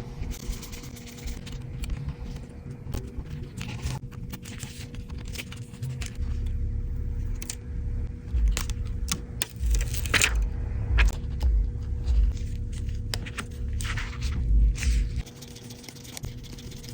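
Small clicks, taps and scrapes of tools and small parts being handled during an iPhone screen repair, over a steady faint hum, with an uneven low rumble through the middle.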